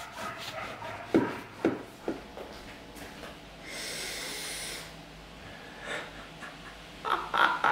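A knife sawing through a baguette's crisp crust, with many small crackles and two louder knocks. About four seconds in comes a long, loud sniff, and louder knocks follow near the end.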